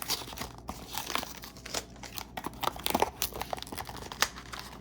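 Cardboard and foil packaging being crinkled and torn open by hand: irregular rustling and crackling with sharper tearing sounds scattered through.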